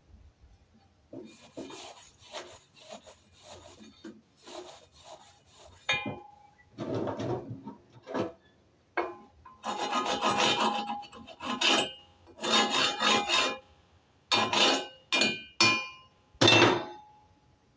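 Wire brush scrubbing slag off a freshly laid E6013 fillet weld on steel plate, in short, irregular back-and-forth strokes, a few harder than the rest.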